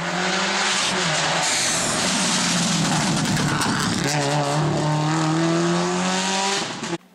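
Rally cars at full throttle: first one car comes up fast with its engine at high revs, then after a cut about four seconds in, a Subaru Impreza rally car's engine note climbs steadily as it accelerates away. The sound cuts off abruptly near the end.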